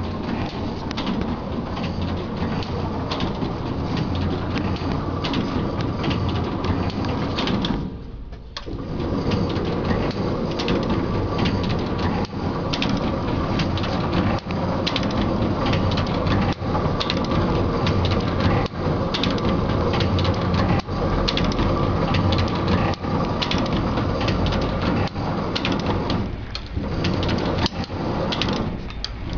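Book stitching machine running, a steady mechanical clatter full of sharp ticks. It eases off briefly about eight seconds in and twice more near the end.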